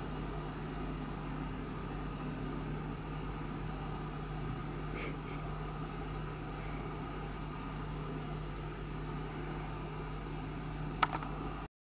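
Steady low electrical hum of room tone, with a single sharp click near the end before the sound cuts off abruptly.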